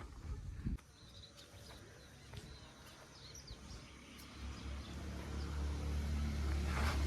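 A low diesel engine rumble from the earthmoving machinery grows steadily louder through the second half, with small bird chirps over it and a few knocks in the first second.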